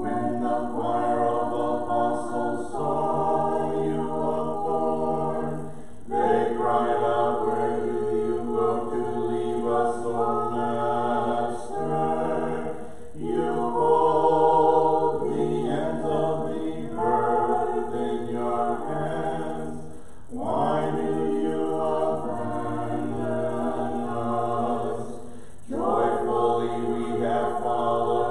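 Orthodox liturgical choir singing a cappella in several parts, phrase after phrase, with the lower voices holding notes beneath the melody.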